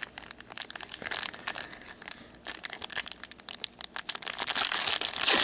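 Plastic foil wrapper of a trading card pack crinkling in gloved hands as it is worked open, the crackling getting denser and louder near the end as the wrapper is torn.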